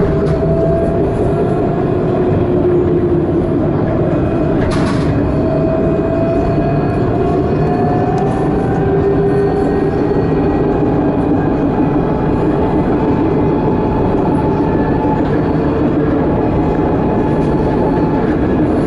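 Tram running along its track, heard from inside the driver's cab: a steady rumble of wheels on rail with the electric drive's whine slowly rising in pitch, and a single sharp click about five seconds in.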